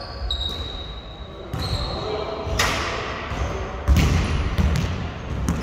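Pickup basketball in a gym: a ball thuds loudly twice, about two and a half and four seconds in, over short squeaks of sneakers on the court and voices echoing in the hall.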